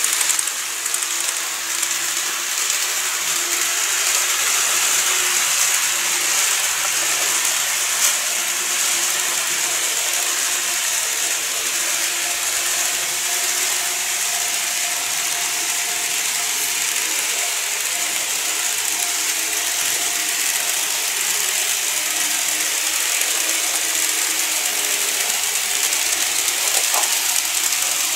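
TOMIX N-scale 103 series model train running along sectional track: a steady whirring of its small motor and gears, with a faint whine that wavers in pitch and a single click about eight seconds in.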